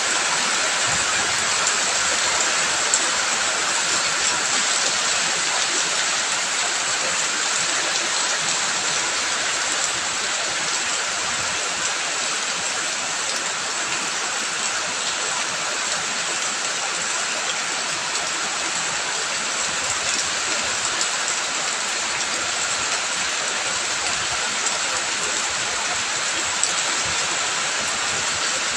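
Steady rush of rain and running water, an even hiss without a break, with an occasional faint tick.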